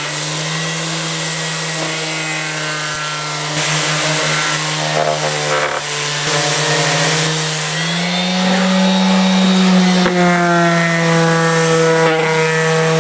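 Electric sander running and sanding the wood inside a tool chest, a steady motor hum over a rasping hiss. About eight seconds in the motor's pitch steps up.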